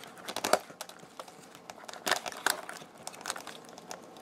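Rubber balloon being stretched and worked by hand over a radio receiver and its wires: irregular rubbing and rustling with scattered small clicks and crinkles.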